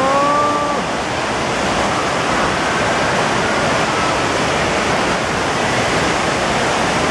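FlowRider wave simulator: a thin, fast sheet of pumped water rushing steadily up the padded slope and spraying around a bodyboard riding on it.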